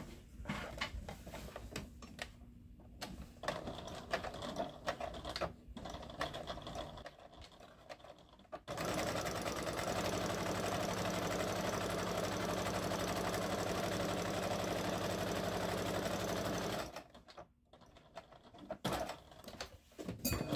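A few seconds of light clicks and rustles, then an electric domestic sewing machine running at an even speed for about eight seconds, stitching a straight seam through two layers of fabric, before it stops abruptly. Scattered clicks follow.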